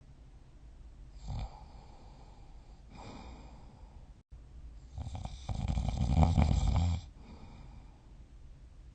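A sleeping person snoring: a short snore about a second in, a softer breath, then one long, loud fluttering snore from about five to seven seconds, followed by quiet breathing.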